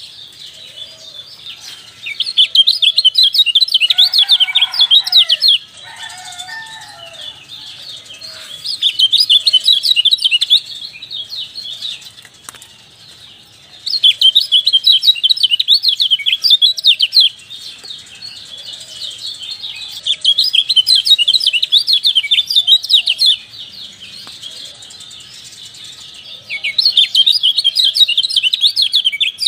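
Kecial songbird singing a rapid, high chattering ciak-ciak song in loud bouts of about three seconds that come again every few seconds, with quieter chirps in between.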